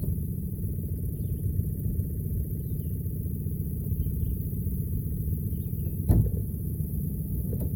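Boat motor idling, a steady low rumble, with a single knock about six seconds in and a few faint high chirps.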